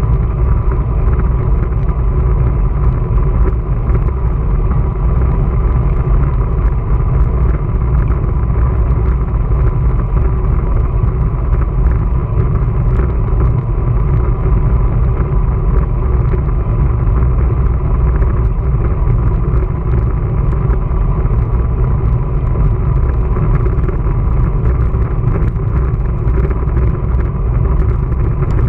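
Steady wind rumble on the microphone of a moving bicycle, mixed with tyre and road noise, heaviest in the low end with a faint steady hum above it.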